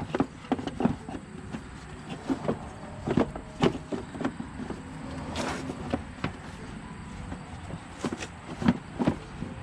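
Irregular clicks and knocks of a hand tool and metal parts as a hard-to-reach 10 mm screw is worked out of an ATV's belt cover, with one longer scraping rattle about halfway through.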